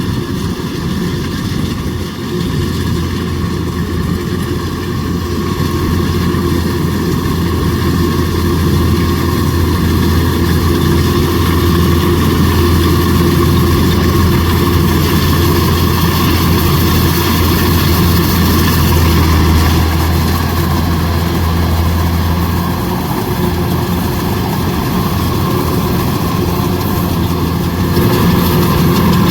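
Kubota DC105X rice combine harvester's diesel engine running steadily under harvesting load, with a deep low hum that eases off about two thirds of the way through.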